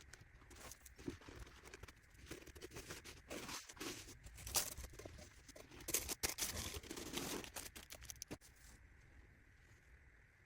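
Packaging material rustling and crinkling with small clicks as it is handled and folded for wrapping, stopping near the end and leaving a faint hiss.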